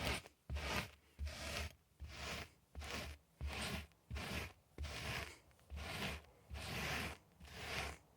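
Carpet being worked with short, regular back-and-forth strokes, about one and a half a second. No vacuum motor is running between them.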